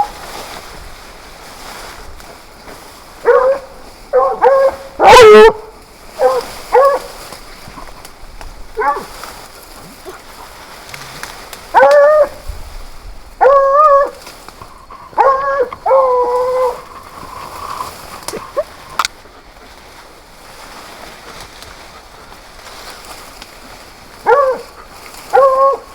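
Hunting dogs baying in clusters of drawn-out barks with quiet gaps between them, one very loud call about five seconds in: the sound of dogs holding a wild boar at bay.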